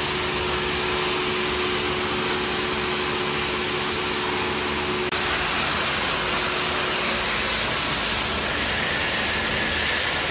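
Pressure washer jet spraying a car floor mat on a concrete floor: a steady hiss of high-pressure water, with a momentary dip about five seconds in.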